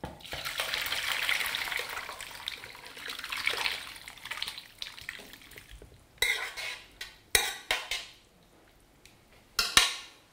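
Braising liquid with diced vegetables poured from a stainless steel pot over a rolled roast in a steel tray, splashing steadily for about six seconds. Then the spoon and pot scrape and knock against the metal, with a few sharp clanks near the end.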